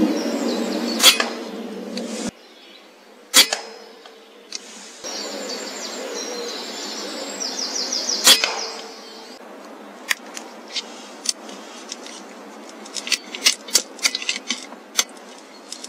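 Three single air rifle shots, each a sharp crack, about a second, three and a half seconds and eight seconds in, fired from a pre-charged pneumatic (PCP) air rifle at grey squirrels on a feeder. A run of smaller sharp clicks is scattered through the last few seconds.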